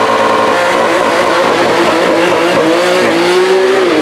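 Porsche 911 GT3's naturally aspirated flat-six revving hard as the car accelerates away from the start line, a loud steady high engine note whose pitch dips briefly about three seconds in and again at the end, as at gear changes.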